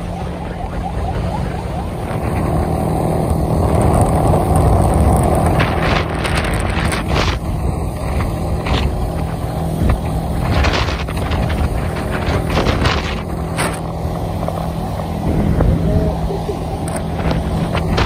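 Motorcycle engine running steadily while riding at road speed, with wind buffeting the microphone in irregular gusts.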